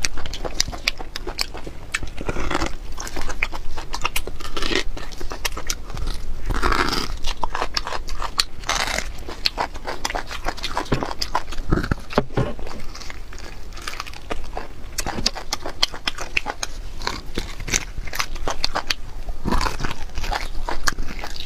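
Close-miked wet eating sounds: sucking and slurping marrow from a braised beef bone, with chewing, biting and many lip smacks making a dense run of wet clicks.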